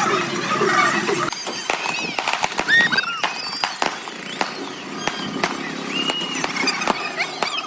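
Busy fairground noise: many sharp clicks and short, high squeaks and whistles over a crowd. About a second in, a wavering tune or voices stops.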